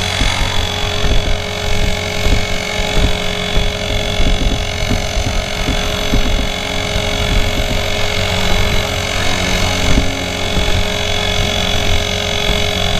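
Blade 360 Fusion electric RC helicopter in flight, its drivetrain and rotors making a loud, steady whine of several pitches over an uneven low rumble. The loud noise is from sand caught in the main spur gear.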